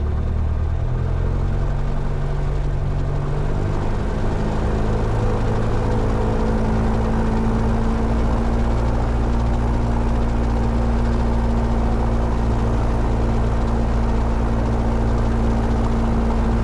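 Piper PA-28's piston engine and propeller running at run-up power while the aircraft is held on the brakes; the engine note rises about three to four seconds in, then holds steady.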